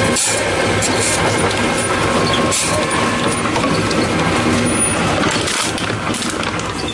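Tomra T-63 HCp reverse vending machine's mechanism running: a steady mechanical rattle with scattered clicks, easing off at the very end.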